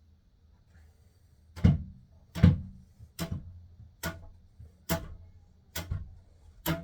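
A run of about seven sharp knocks on a wooden bed frame, evenly spaced a little under a second apart, starting about one and a half seconds in, the first two loudest: the frame being struck to knock a part loose as the bed is taken apart.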